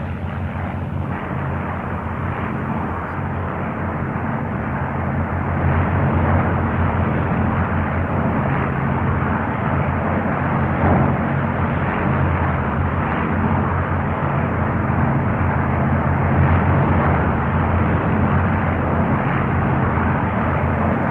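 Steady drone of piston-engined propeller aircraft flying in formation, getting somewhat louder about five seconds in.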